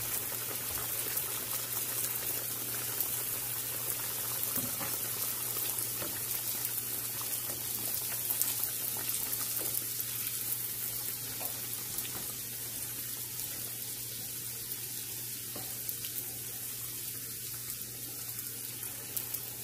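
Samosas deep-frying in hot oil in a pan: a steady bubbling sizzle with small crackles, easing a little in the second half.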